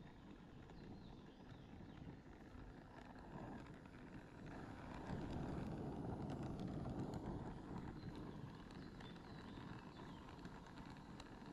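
Oxy-acetylene torch flame running steadily while heating a cast iron pulley for brazing, a low rushing noise that grows louder for a few seconds about halfway through.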